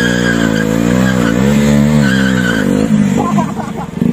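KTM 250 Duke's single-cylinder engine revving hard, the revs dipping and climbing again twice, with the rear tyre skidding on the tarmac.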